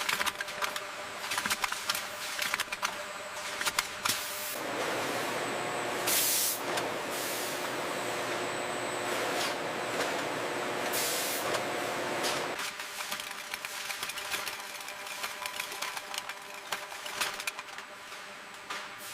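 Machinery hum with steady tones and scattered clicks. A louder steady rush runs from about four and a half to twelve and a half seconds in, with short hisses of air or steam about six and eleven seconds in.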